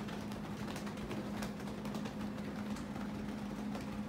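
Ceiling fan running: a steady hum with scattered light ticks.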